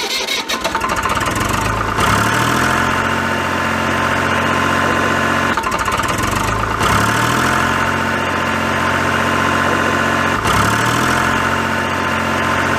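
Tractor engine idling steadily, its even running broken by a brief dip three times.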